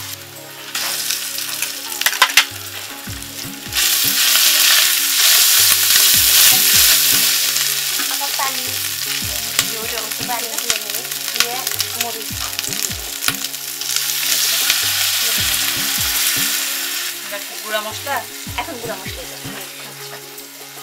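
Whole spices, dried red chillies and fried onions sizzling in hot oil in a large aluminium pot, stirred and scraped with a wooden spatula. The sizzle swells loudly about four seconds in and again near the two-thirds mark, with scattered knocks of the spatula against the pot.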